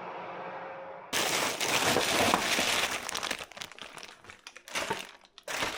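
Dry plant stems and seed pods rustling and crinkling as they are handled, loud and irregular. It starts abruptly about a second in, after a steady low hum.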